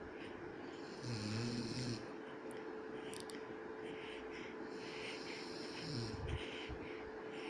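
A man snoring in his sleep: a buzzing snore about a second in, the loudest moment, and another that slides down and back up in pitch about six seconds in, with short breathy rasps between.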